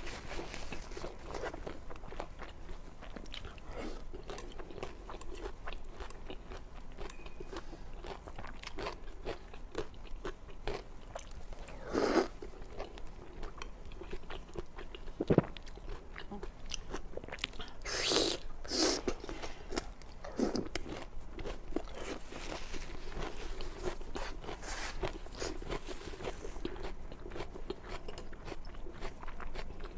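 Close-miked eating: steady chewing with wet, crunchy clicks, and a few louder bites about twelve, fifteen and eighteen to nineteen seconds in.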